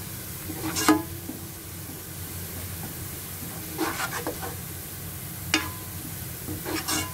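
Chopped onions sizzling in hot oil in a nonstick pan, just beginning to change colour, while a silicone spatula stirs them. The spatula makes short scrapes against the pan every second or two, the loudest about a second in.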